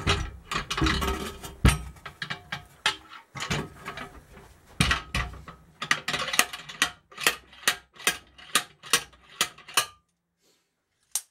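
Slide hammer of a blind bearing puller being worked to draw a swingarm bearing out of a Suzuki Hayabusa swingarm, its sliding weight clacking against the stop, metal on metal. The strikes are uneven at first, then come as a regular run of about three a second from about five seconds in, and stop about ten seconds in as the bearing comes free.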